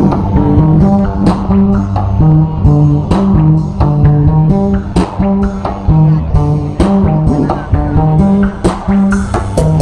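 Loud, bass-heavy music played through a truck-mounted carnival sound system of subwoofers and line-array speakers. A plucked, guitar-like bass line moves through sustained notes, and a sharp percussive hit lands about once a second.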